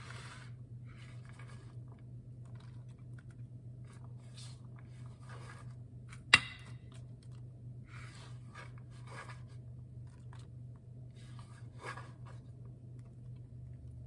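Chopped cucumber being scraped by hand off a wooden cutting board and dropped into a clay bowl of salad leaves, a run of soft rustles and scrapes with one sharp click about six seconds in. A low steady hum sits underneath.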